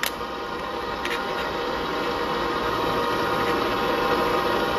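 Workshop machinery running with a steady hum, with a short metallic click at the start and another about a second in.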